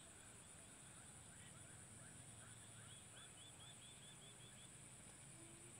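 Near silence with a steady faint high-pitched hiss. Two faint runs of quick bird chirps come through, the first about a second in and the second around three seconds in.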